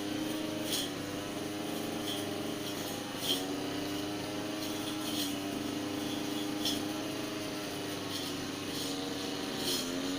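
Petrol brush cutter (grass trimmer) running at steady high speed while trimming a hedge, its pitch sagging slightly now and then under load. Sharp ticks every second or two.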